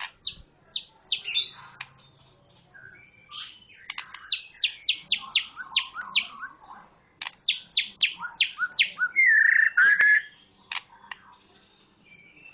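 A bird calling in quick runs of sharp, steeply falling chirps, with a louder wavering note about three-quarters of the way through.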